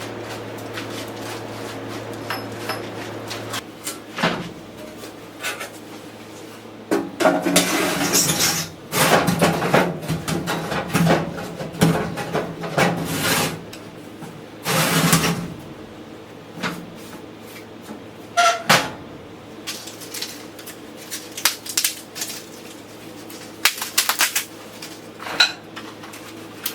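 Kitchen clatter: pans, dishes and utensils knocking and clinking in an irregular run of handling sounds, busiest in the middle. A steady low hum runs underneath at first and stops about four seconds in.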